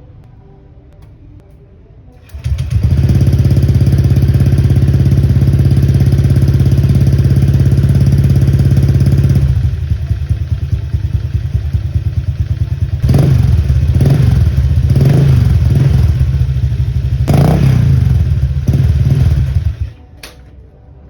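Honda Click 125i scooter's single-cylinder four-stroke engine through a Racing Monkey HUN power pipe exhaust, cold-started. It catches suddenly a couple of seconds in and runs at a steady fast idle, then settles lower. It is blipped several times with one bigger rev, then shuts off abruptly near the end.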